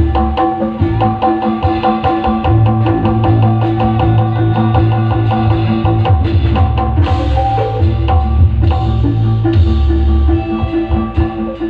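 Loud percussion-driven music, typical of Javanese Badui troupe accompaniment: drums and fast, even knocking strikes over a deep, sustained bass with steady pitched notes.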